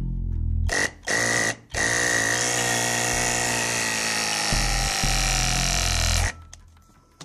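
Battery-powered pipe press tool motor running: a short burst, then a run of about four and a half seconds whose pitch slowly falls as the tool loads up through a press cycle, cutting off suddenly.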